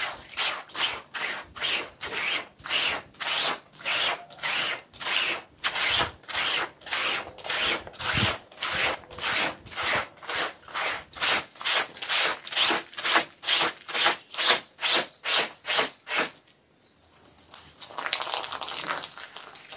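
Stiff hand brush scrubbing a wet, soapy carpet in even back-and-forth strokes, a little over two a second. The scrubbing stops about 16 seconds in, and after a short pause comes a steady hiss of water spraying onto the carpet from a hose.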